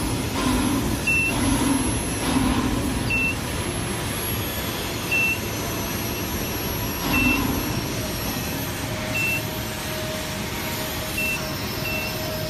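Steady industrial workshop noise around an induction heating power supply, with a thin high whine throughout. A short, high electronic beep repeats about every two seconds.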